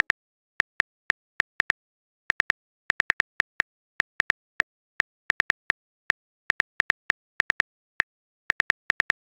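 Phone keyboard typing sound effect: a run of short, sharp key clicks in irregular clusters of two to four, about three or four a second.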